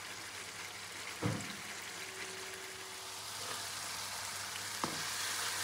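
Ground onion and ginger frying in oil in a wok, giving a soft, steady sizzle. There are two light knocks, one a little over a second in and one near the end.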